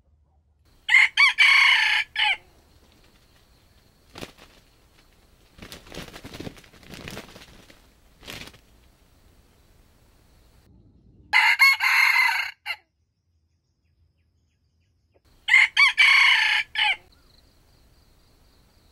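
Red junglefowl rooster crowing three times, each crow short and choppy, broken into quick pieces. Quieter rustling and scuffling sounds come between the first and second crows.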